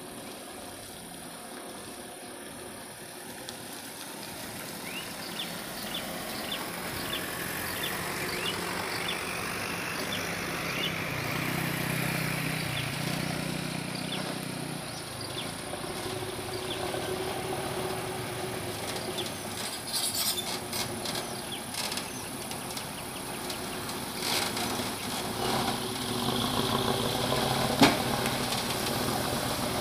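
A truck engine running and drawing closer, growing louder over the first dozen seconds. Several knocks come in the second half, the sharpest near the end, and a faint series of insect chirps sounds in the first third.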